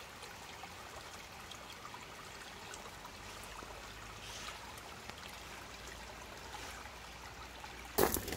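Steady rush of running water, with faint scattered ticks. About eight seconds in, a sudden loud clatter of knocks cuts in.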